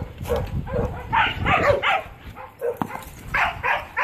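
Dogs barking, single barks early and then runs of two or three barks close together, with short gaps between them.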